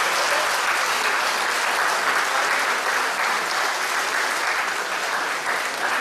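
Spectators applauding the end of a table-tennis rally, a steady spell of clapping that eases slightly near the end.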